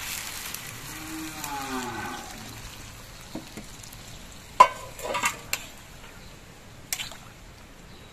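Hot water poured into a kadai of rice and moong dal frying in spices, splashing and sizzling for the first couple of seconds. Then a few sharp knocks of the spatula against the pan, the loudest about halfway through.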